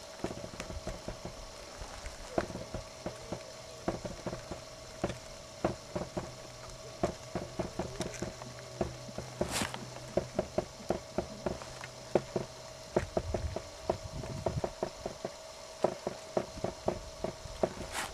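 Horse's hoofbeats on a dirt arena: a quick run of dull hoof strikes under a ridden horse, growing clearer as the horse passes close in the second half.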